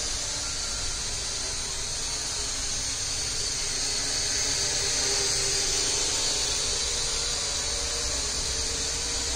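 Small racing drone's electric motors and propellers whining steadily as it hovers in place with its balance just trimmed, a high whine over a low hum that swells slightly near the middle.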